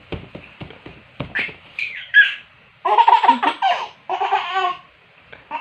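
Baby laughing: a few short high squeals about a second and a half in, then two bursts of laughter. A few soft knocks come in the first second.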